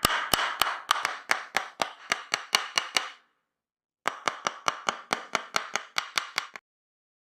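Tok Sen massage: a wooden mallet tapping a wooden stick in quick, even strikes, about four a second. The tapping stops about three seconds in, starts again a moment later, and cuts off suddenly near the end.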